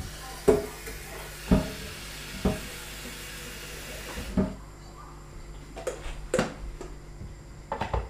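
Water running from a tap into an electric kettle for about four seconds, then cutting off, with knocks and clunks of the metal kettle being handled, set down and its lid closed.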